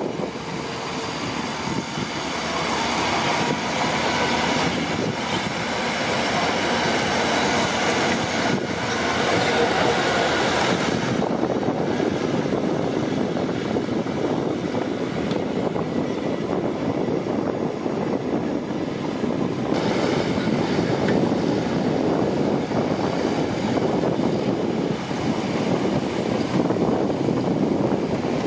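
Crawler bulldozer at work: its diesel engine running steadily under load, with the clanking and squeal of its steel tracks.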